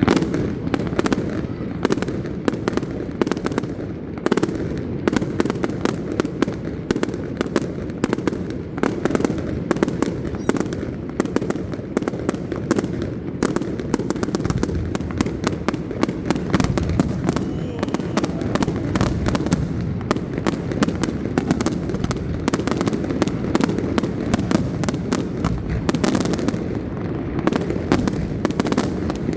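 Fireworks display: a dense, continuous run of sharp bangs and crackles, many per second.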